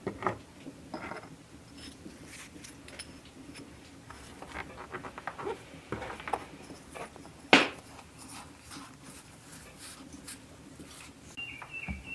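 Close handling sounds of a metal pastry cutter working rolled pie dough on a floured wooden table: soft scrapes, pats and light taps. There is one sharp knock about seven and a half seconds in.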